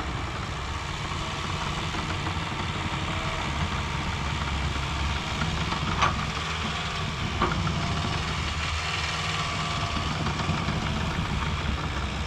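Heavy equipment engine running steadily, with two short clicks about six and seven and a half seconds in.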